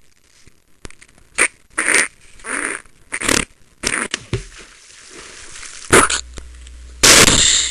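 Comic toilet sound effects of a cartoon character defecating: a run of short straining and fart noises, then a longer, louder burst near the end as the dropping comes out.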